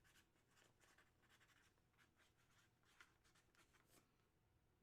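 Near silence with faint, scattered rustling and light ticks of handling.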